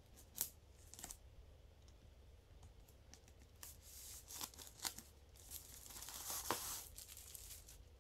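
Plastic shrink wrap being slit with a blade and pulled off a boxed Blu-ray set: a few sharp crackles, then a longer tearing rustle about six seconds in.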